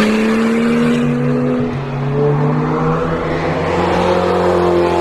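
Ferrari supercar's engine running at steady revs as the car drives along a race track, the pitch rising a little near the end.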